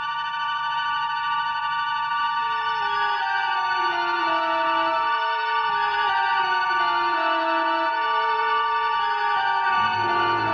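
Background music: a sustained, held chord with a slow melody stepping downward beneath it, and a low bass note coming in near the end.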